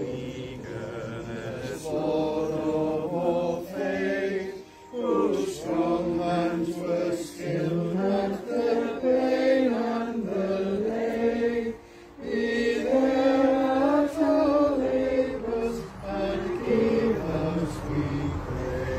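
A small congregation singing a hymn together in slow, held phrases, with brief breaks between lines about 5 and 12 seconds in.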